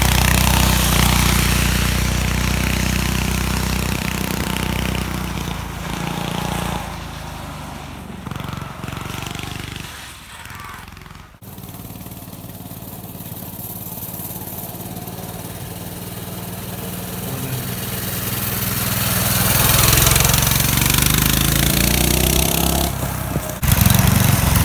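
Diesel engine of a diesel-swapped Ford garden tractor running, fading away into the distance over the first ten seconds or so. It then grows louder again as it comes back, its pitch rising near the end.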